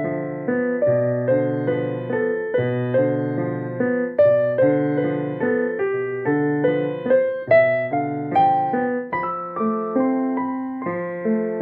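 Background piano music: a gentle melody of struck notes, each fading away, played in a steady flow.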